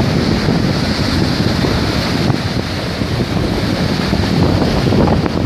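Wind buffeting the microphone with a steady, loud rumble, over the wash of waves.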